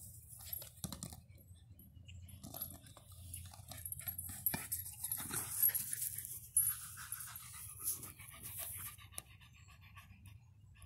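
A small dog panting while she scuffles with a soccer ball on dry grass, with scattered short knocks and rustles.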